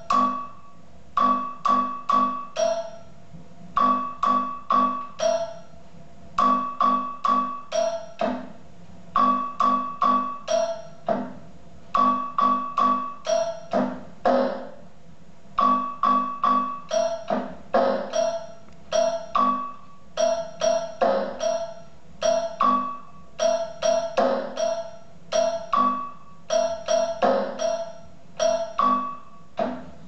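A melody of short, quickly decaying struck notes in fast runs, played on a small electronic instrument tapped with the fingertips. The phrase repeats about every three seconds.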